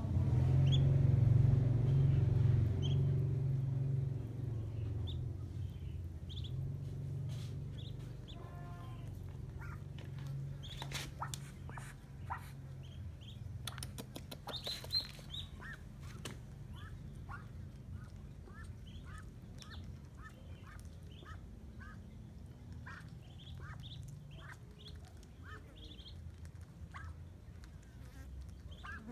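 Muscovy ducklings peeping: many short, high chirps, coming about twice a second in the later part. Under them runs a low hum that is loudest in the first few seconds and then fades, with a cluster of sharp clicks around the middle.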